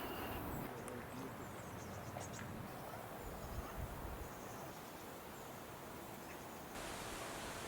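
Quiet outdoor ambience: a steady hiss with a few faint, short high chirps in the first few seconds.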